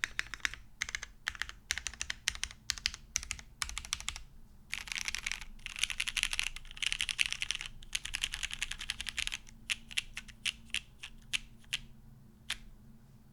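Typing on a Matrix 8XV 2.0 OG mechanical keyboard with lubed vintage Cherry MX Black linear switches in an aluminum plate and GMK keycaps: quick, even keystrokes, then a few seconds of very fast continuous typing, slowing to scattered single presses that stop about a second before the end.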